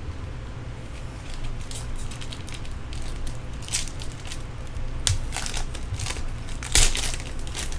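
Crinkly wrapping being handled and crushed in a run of short crackles, the loudest near the end.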